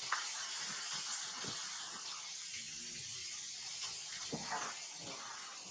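Steady hiss of water in a rock pool, with a few soft splashes as macaques move in the water.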